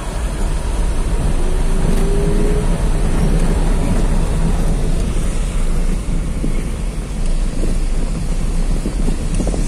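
Car driving slowly over a cobblestone street, heard from inside the car: a steady low rumble of engine and tyres on the stones, with a faint uneven rattle.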